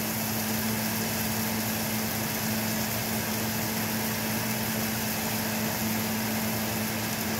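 Kitchen range hood fan running with a steady hum and an even rush of air.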